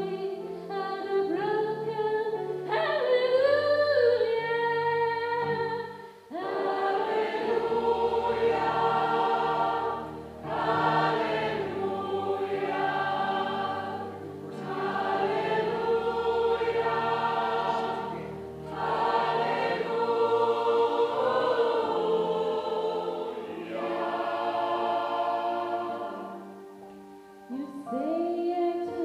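Gospel choir singing in sustained phrases over a low bass line, with short breaks between phrases about every four seconds.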